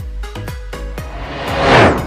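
Electronic background music with a steady drum beat; a whoosh swells up and peaks near the end.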